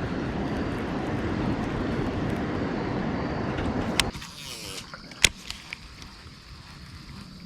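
A motor running steadily, cutting off abruptly about four seconds in, followed by quieter surroundings with two sharp clicks.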